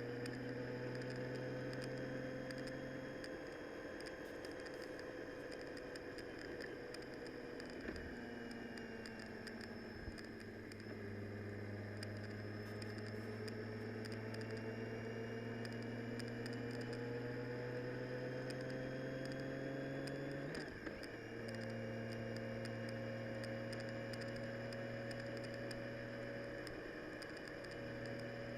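Motor vehicle driving in the rain. The engine's drone climbs slowly in pitch and drops back sharply twice, about a third and about two-thirds of the way in, as with gear changes, over a light patter of rain.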